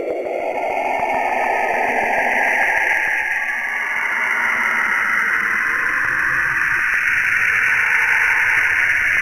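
NASA's space recording of Saturn's radio emissions turned into sound: an eerie, steady radio-like hiss with a whistling high band, and a lower band that slides up in pitch near the start.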